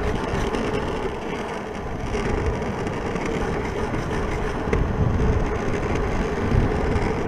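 Caster-board wheels rolling fast over asphalt: a steady gritty rumble with a constant hum, with wind buffeting the microphone now and then.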